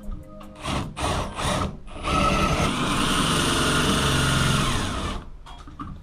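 Power drill run in three short bursts, then held at speed for about three seconds with a steady whine before stopping, as when driving a screw.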